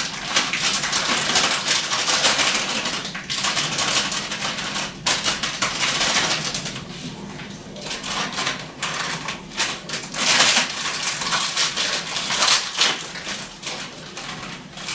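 Ground almonds tipped from their packet into a bowl, with the packet rustling and crinkling in irregular bursts.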